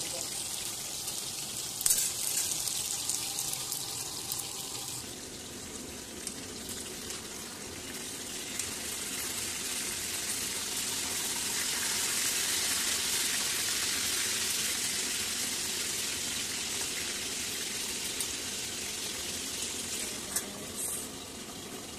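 Chicken wings frying in hot oil in a nonstick pan: a steady sizzle that grows louder through the middle. A sharp knock about two seconds in and a few light clicks near the end.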